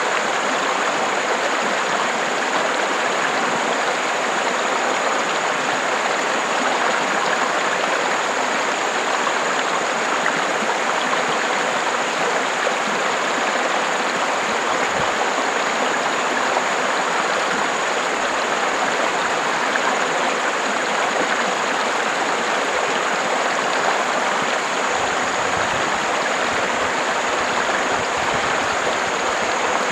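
River water flowing and rushing in a steady, continuous wash.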